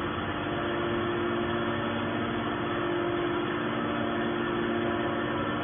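Hydraulic scrap metal baler running with a steady machine hum from its pump and motor, holding a few constant tones.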